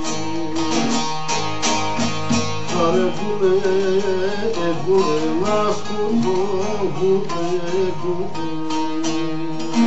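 Bağlama (long-necked saz) strummed in a fast, steady rhythm over a held drone note, playing a Kurdish kilam. From about three seconds in until past seven seconds, a wavering, ornamented wordless vocal line runs over the strumming.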